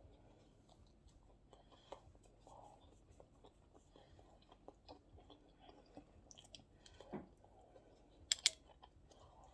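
A person chewing food with soft, scattered mouth clicks and smacks, and two sharper, louder clicks near the end.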